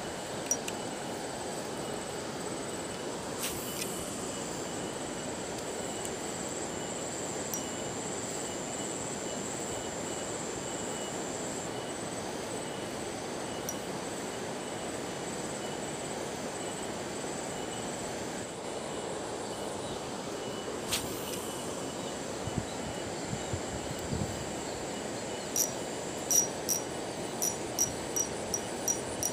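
An insect trilling in a thin, high, pulsing tone over a steady rushing background noise; near the end comes a quick run of light clicks.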